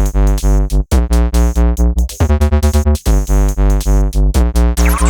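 Electronic music: synthesizer chords over a pulsing bass beat, with a rising sweep near the end.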